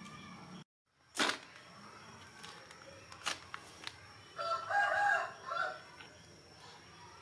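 A rooster crowing once, a call in several short parts, about halfway through. A sharp click comes early, just after a brief dropout.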